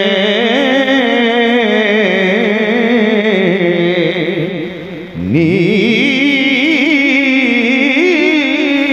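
A man singing Punjabi Sufi verse through a microphone in long, wavering melismatic notes held on drawn-out vowels. About five seconds in his voice briefly drops, then he comes back in on a higher note.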